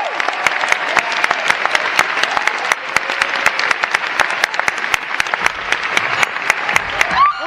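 Concert audience applauding, dense clapping from many hands. Near the end a sliding tone comes in.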